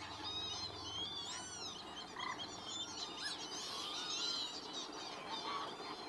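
A large mixed flock of waterbirds calling together: a dense chorus of many overlapping high, arching calls with no single bird standing out.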